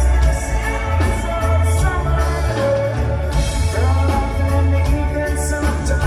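Live band playing, with a heavy, rhythmic bass line under layered instruments and a sung vocal line.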